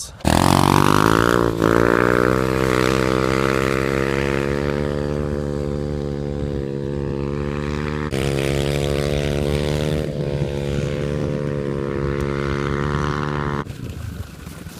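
Dirt bike engine revving hard close to the microphone: the pitch climbs fast as the throttle opens right at the start, then holds high and slowly eases, with a sudden drop in loudness near the end.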